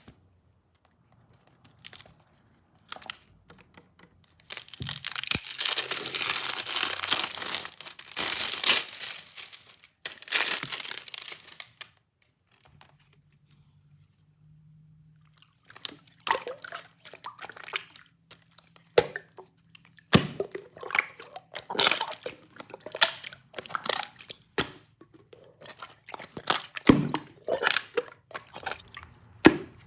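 Close-miked crinkling and tearing, then a long run of crisp crunching and chewing sounds.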